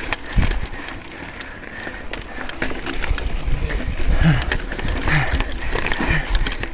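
Mountain bike being ridden over a trail: tyres on dirt and rock, with the bike's chain and parts rattling in many quick clicks.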